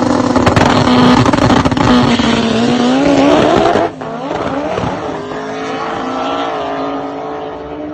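Import drag car launching at full throttle, its engine note climbing and holding as it pulls away hard. About four seconds in the sound becomes more distant and quieter, the engine still rising in pitch with gear changes as the car runs down the strip.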